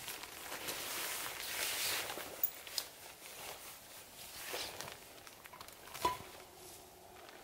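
Footsteps on a thin layer of snow over forest litter, then rustling and a few sharp clicks as a canvas backpack is taken off and handled, with one louder knock about six seconds in.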